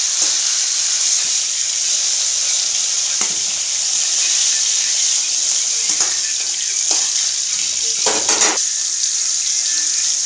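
Fish-head pieces sizzling in hot oil in a steel kadai, a steady hiss. A metal spatula scrapes and knocks against the pan a few times, longest about eight seconds in.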